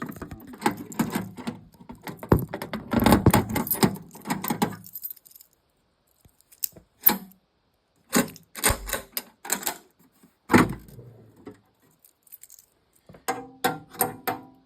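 Metal tools and toolbox parts rattling, clicking and clattering as the toolbox is handled. The sound comes in several bunches of clicks with quiet pauses between them.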